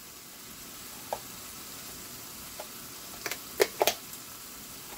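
Vegetables sautéing in a skillet, a steady sizzle, with several light clicks against the pan, most of them in the second half.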